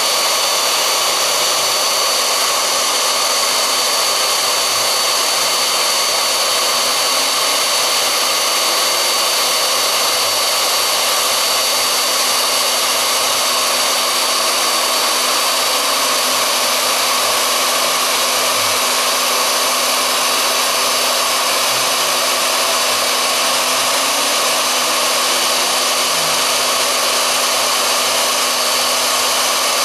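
Small CNC milling machine's spindle motor running steadily with a constant high whine while it mills HDPE, and faint stepper-motor tones rising and falling as the axes move.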